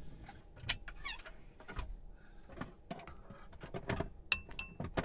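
Scattered light clicks and knocks of dishes and utensils being handled at a table, with two short high beeps about four seconds in.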